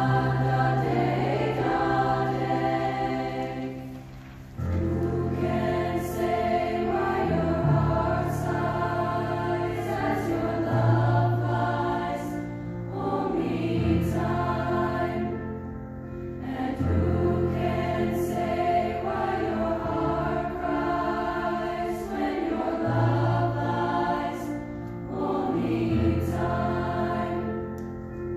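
Women's choir singing in harmony, with low accompaniment notes held underneath. The singing drops away briefly about four seconds in, then comes back in.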